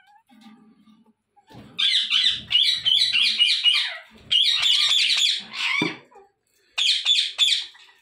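Parrots calling in three bouts of rapid, raspy chattering notes, the loudest sound, with a few low knocks mixed in.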